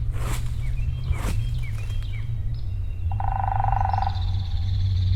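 Wild turkey gobbler gobbling once, a rattling call about a second long starting about three seconds in. Small birds chirp around it, and two short swishing bursts come in the first second and a half.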